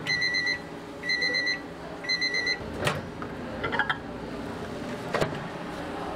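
Microwave oven's end-of-cycle beeper sounding three times about a second apart, each a high beep of about half a second: the heating cycle has finished. Then comes a sharp click as the door opens, light clinks as a glass bowl is lifted out, and a knock as it is set down.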